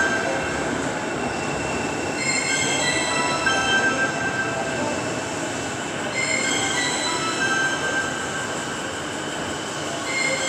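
Long escalator running, a steady mechanical rumble of steps and drive with high squeals that come back about every four seconds.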